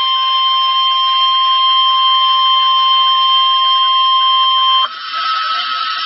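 Emergency Alert System attention tone: a loud, steady electronic alert tone sounding a severe thunderstorm warning. About five seconds in it changes to a higher, weaker tone under a hiss.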